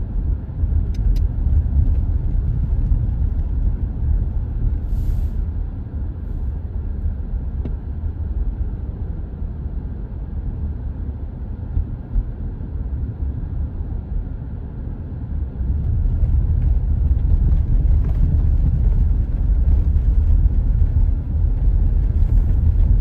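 Steady low rumble of a car driving, heard from inside the cabin, growing louder about sixteen seconds in.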